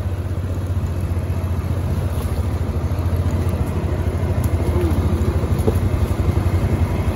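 ATV engine running steadily while the quad cruises slowly, a deep even drone of rapid firing pulses that grows gradually louder.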